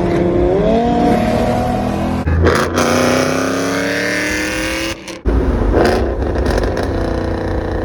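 Ford Mustang engine accelerating hard through the gears: its pitch climbs steadily, breaks off about two seconds in and again about five seconds in as gears change, then pulls on.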